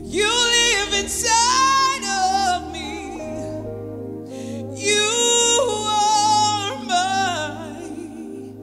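A woman singing a gospel worship song with flowing runs and vibrato over sustained backing chords, in two phrases: one at the start and another about five seconds in, with only the chords between them.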